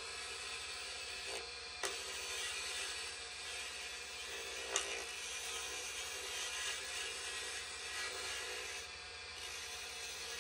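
Wood lathe running while a turning gouge shaves a spinning canary wood handle blank near its copper ferrule: a steady hiss of cutting over the low hum of the lathe motor, with two sharp ticks, about two and five seconds in.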